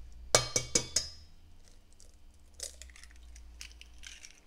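An egg cracked over a stainless steel mixing bowl: four quick, sharp taps of the eggshell against the metal in the first second, with a short ring from the bowl, then a few faint clicks of shell.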